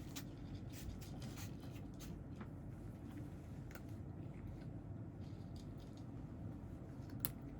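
Steady low hum of a running appliance with scattered faint small clicks and scratches, and one sharper click near the end.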